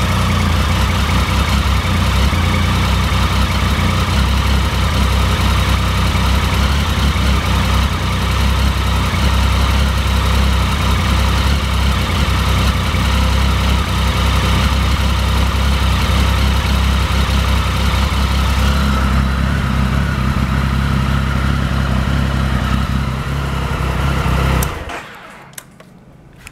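2006 Triumph Speed Triple 1050's three-cylinder engine idling steadily, then shut off near the end, after which a few faint clicks remain. The seller lists the bike as free of abnormal engine noises.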